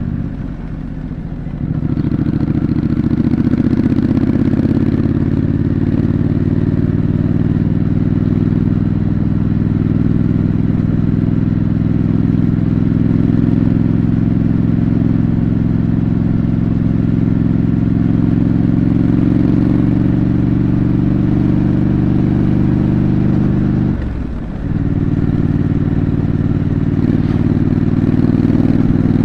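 A Triumph Scrambler 900's parallel-twin engine runs under way through its stock exhaust, with a steady note. The note drops out briefly just after the start and again about 24 seconds in.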